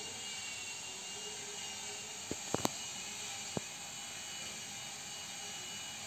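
A steady whirring hiss, with a quick cluster of three short clicks about two and a half seconds in and one more click about a second later.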